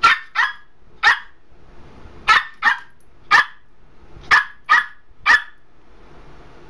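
A dog barking about nine times in short, sharp barks, some single and some in quick pairs, stopping about five seconds in. The dog is objecting to the bird being on its pet steps.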